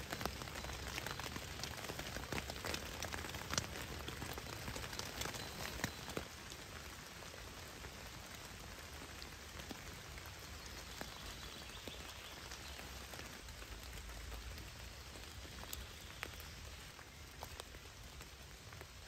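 Steady rain falling on a tarp shelter and forest leaves, many separate drops tapping sharply over the hiss of the rain. It is a little louder and busier for the first six seconds or so.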